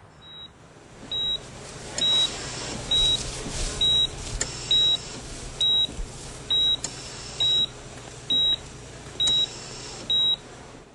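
Hospital heart monitor beeping at a steady pulse, one short high beep a little more than once a second, each beep marking a heartbeat, over steady background noise.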